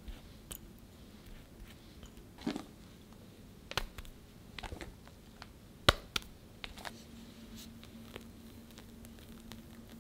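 Soft cake-assembly handling sounds: a silicone pastry brush dabbing sugar syrup onto sponge cake, whipped cream being dropped on, and a few sharp utensil clicks, the loudest about six seconds in. Toward the end a metal offset spatula spreads the cream, with a faint steady hum underneath.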